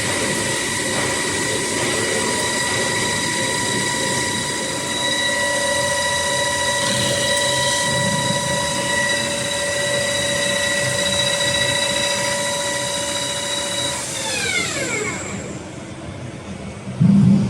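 ZMM LS600M lathe running with a steady high whine, then spinning down about fourteen seconds in, its pitch falling away over a couple of seconds as the spindle stops. A short loud low rumble starts at the very end.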